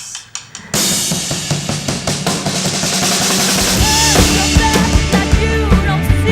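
Rock band music with a full drum kit: after a brief pause the drums crash in with cymbals about a second in, and bass and melodic guitar lines join about four seconds in.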